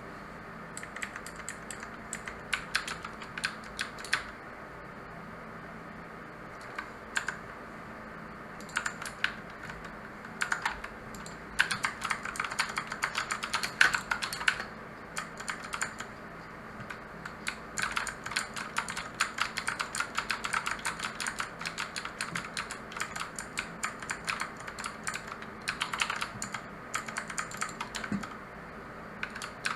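Mechanical keyboard with clicky blue switches being typed on in bursts of rapid keystrokes, with short pauses between runs.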